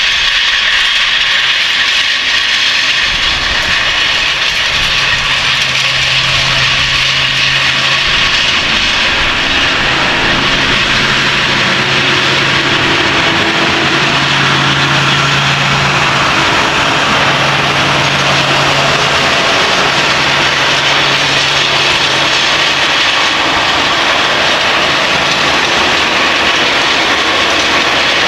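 Case IH Quadtrac 620 tracked tractor running under load while pulling a Köckerling Vario cultivator and Brix roller through the soil. A steady, loud rushing noise, with a low engine hum that comes in about five seconds in and weakens again after about twenty seconds.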